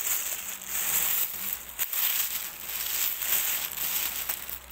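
Thin plastic shopping bag crinkling and rustling as it is handled and opened, a dense run of crackles lasting several seconds.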